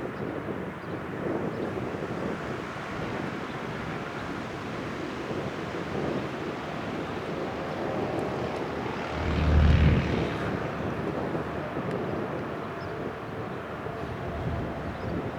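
Single-engine Cessna 172 light aircraft taking off, its piston engine and propeller droning steadily. A brief low rumble swells about nine seconds in and fades a second later.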